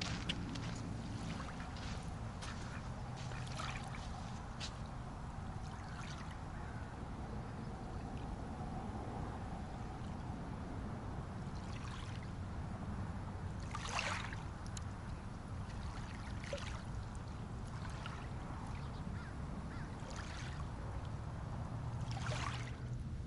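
Outdoor lakeside ambience: a steady low rumble with a few short duck calls scattered through it.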